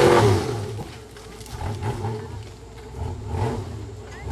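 Off-road rock buggy engine: a loud rev fading away in the first half second, then running lower with a few short throttle blips.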